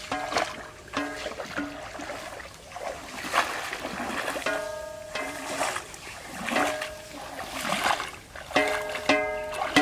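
Background music of short repeated notes, over splashing of feet wading through shallow muddy water.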